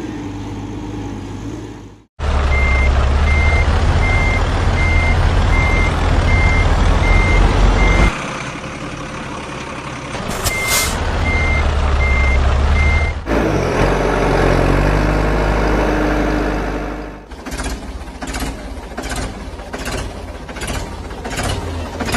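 A heavy truck engine running with its reversing alarm beeping steadily, in two runs of beeps. Near the end a fast, rhythmic mechanical clatter takes over.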